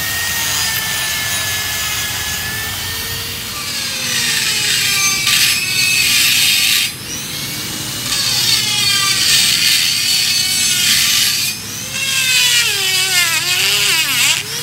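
Handheld electric die grinder with a rotary burr grinding the steel of a truck's front axle beam. The motor whine dips in pitch as the burr bites and rises again when eased off, in three long spells with two brief letups.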